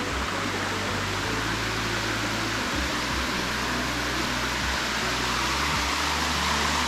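Steady rush of water pouring down a waterfall, growing slightly louder, with a low rumble that cuts in and out.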